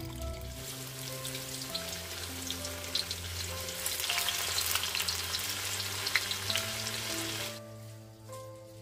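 Tofu cubes frying in hot oil in a wok: a dense sizzle with fine crackles that grows louder midway and cuts off suddenly near the end.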